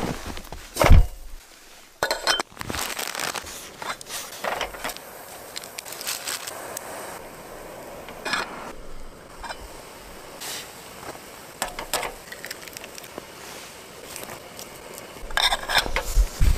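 Cooking at a portable gas stove: a metal fork clinks and scrapes against a small camping pot while noodles are stirred, with a string of sharp knocks and a steady hiss beneath, and a louder clatter near the end.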